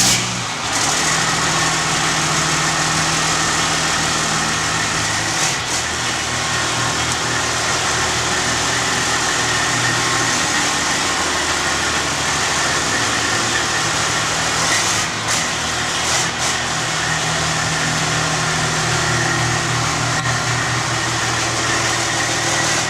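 Big-rig race truck's 14-litre Detroit Diesel inline-six running steadily.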